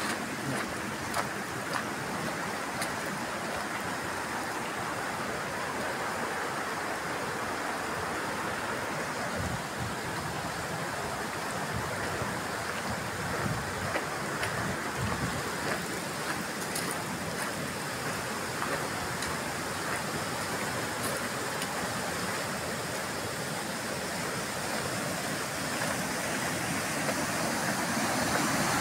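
Floodwater rushing past in a steady wash of noise, getting louder near the end.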